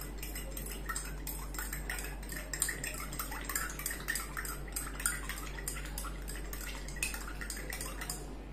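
Metal spoon stirring water with lemon juice, sugar and salt in a glass tumbler to dissolve them: rapid, irregular clinks and scrapes of the spoon against the glass as the liquid swirls.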